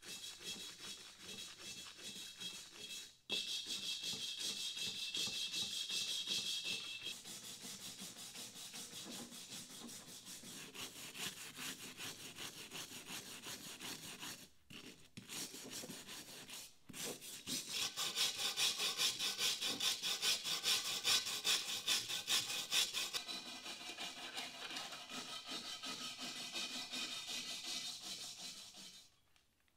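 A stiff brush scrubbed rapidly back and forth over the rusty bottom of a cast iron pot, scouring off caked-on crud. There are a few brief pauses in the scrubbing.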